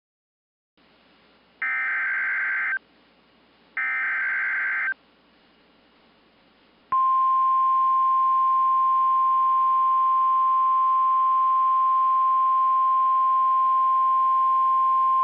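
NOAA Weather Radio Emergency Alert System broadcast over faint radio hiss. It opens with two buzzy bursts of the SAME digital header, each about a second long and a second apart, and from about seven seconds in the steady 1050 Hz alert tone sounds, loud and unbroken, signalling that a weather alert message follows.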